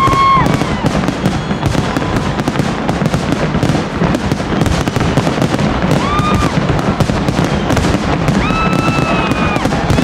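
Fireworks display: a dense, continuous crackle and banging of bursting shells. Long, steady high whistles come about six seconds in and again near the end.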